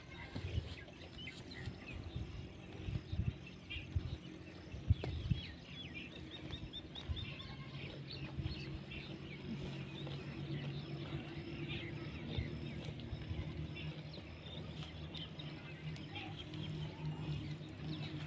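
Small birds chirping in quick short calls throughout, over a steady low hum that grows from about halfway in. A few soft low thumps come in the first few seconds.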